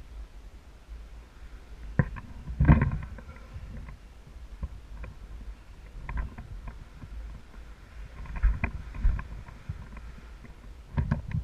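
Irregular knocks and clatter over a low rumble, the loudest knock about two and a half seconds in and another cluster near the end.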